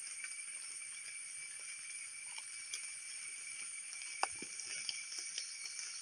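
Steady high-pitched insect chorus, two unbroken whining tones. Over it come faint scattered clicks and rustles as hands pull wild mushrooms from soil and leaf litter, the loudest about four seconds in.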